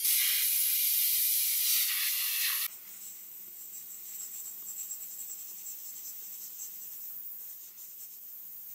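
Handheld sandblasting gun blasting a metal watch strap link with compressed air. A loud hiss drops abruptly about two and a half seconds in to a quieter steady hiss with a faint hum.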